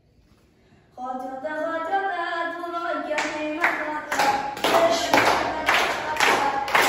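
A singing voice starts about a second in, and from about three seconds in a classroom of children claps along in a steady rhythm, about two claps a second.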